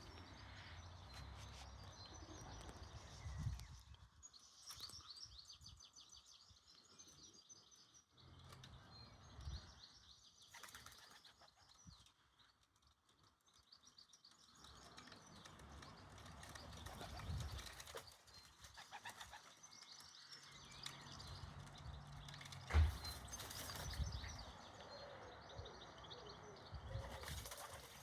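Pigeons close to the microphone: scattered wing flaps and light taps, with faint bird chirps in the background and one sharp knock late on.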